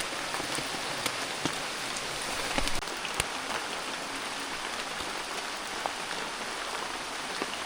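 Rain falling steadily, an even hiss with a few sharper drip-like taps scattered through it.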